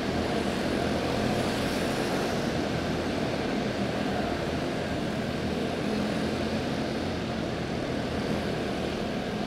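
A field of quarter midget race cars with small Honda engines running together at racing speed on the track, a steady drone.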